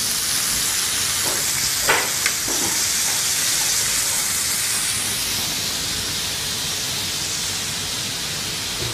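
Beef steaks and onion pieces sizzling steadily in a hot ridged grill pan: a continuous hiss of frying fat.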